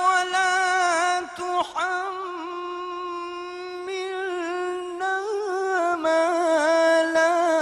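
A man's voice reciting the Quran in the melodic tajweed style, drawing out long held notes with wavering ornamental turns and taking a short breath about a second and a half in.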